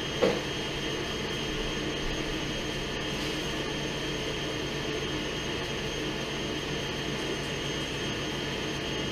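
Steady whir of a KitchenAid stand mixer whipping cream at raised speed, mixed with a range-hood fan on low. A short clack sounds about a quarter second in.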